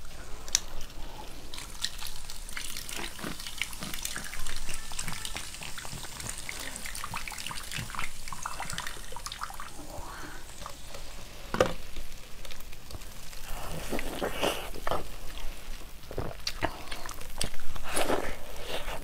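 Thin plastic Pepsi bottle crinkling and crackling as it is peeled off a block of frozen cola, with scattered clicks and sharp cracks. Near the end there is a louder crunching bite into the frozen ice.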